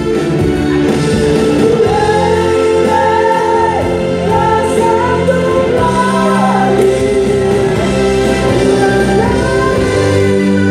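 A singer performing a song live over sustained instrumental accompaniment, the melody gliding between notes in long phrases.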